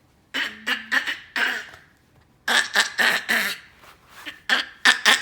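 A baby making a raspy throat sound over and over, short bursts in three groups about a second apart.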